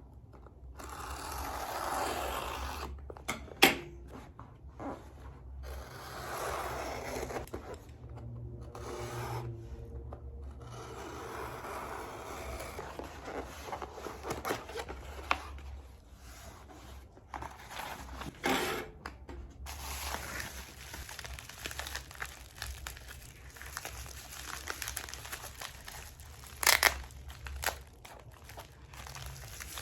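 A small package being opened by hand: wrapping tearing and crinkling, with rubbing and scraping and a few sharp clicks or knocks, the loudest about three and a half seconds in and again near the end.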